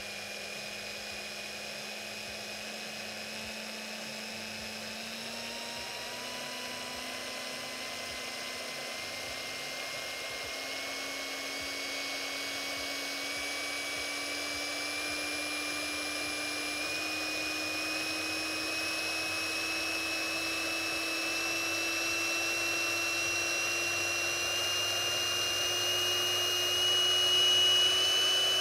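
Hilti SF 6H-22 cordless hammer drill running with no load, its motor whine climbing in pitch in many small, even steps and slowly getting louder as the trigger is squeezed a little at a time. The steps show the drill's very fine variable-speed trigger control.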